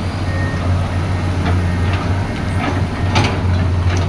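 Excavator's diesel engine running steadily under load, its travel alarm beeping once near the start. Several sharp metallic clanks follow in the second half.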